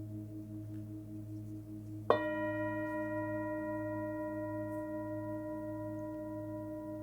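A 26 cm Nepalese singing bowl with a 107 Hz fundamental rings with a deep hum and wavering, pulsing overtones. About two seconds in it is struck again, adding a bright ring of many high overtones that sustains and slowly fades.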